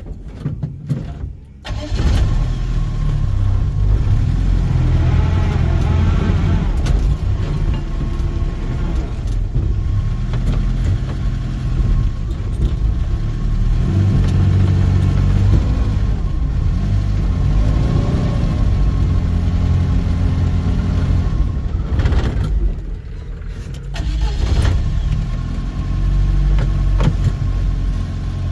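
Off-road 4x4's engine working under load in clay ruts, rising and falling in revs as the vehicle pushes through with its diff locks engaged. The sound drops away briefly twice, just after the start and about 22 seconds in.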